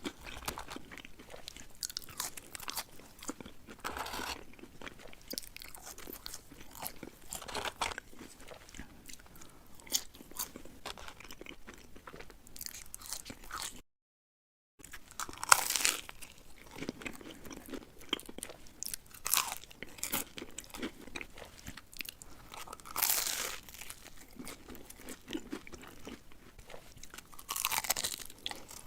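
Close-miked eating: loud crunching bites and chewing of food, with a brief dead-silent gap about halfway through.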